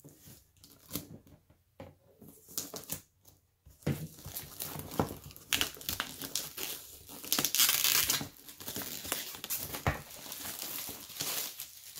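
A cardboard product box is handled with scattered light clicks, then its clear plastic shrink-wrap is torn and peeled off. Crinkling and tearing run almost continuously from about four seconds in and are loudest near eight seconds.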